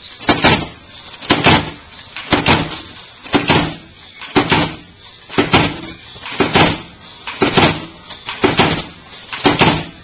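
Automated snapband machine cycling on an automatic run, feeding stainless steel strip and cutting it to length. The cutter strikes about once a second, each stroke a sharp double clack.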